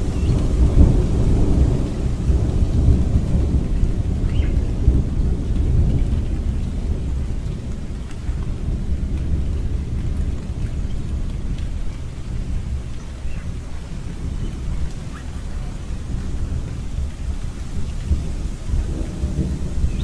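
Thunderstorm: a long, low rolling rumble of thunder over steady rain. The rumble is loudest in the first few seconds, eases off through the middle and builds again near the end.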